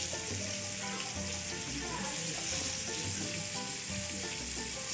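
Fish frying in a pan of oil, a steady sizzle, under soft background music.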